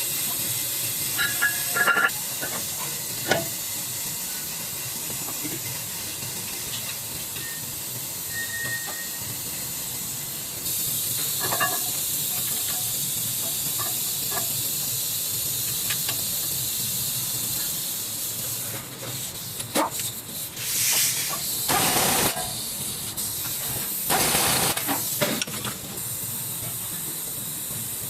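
Steady hiss of air or spray, with several louder hissing bursts in the last third and a few light clicks scattered through.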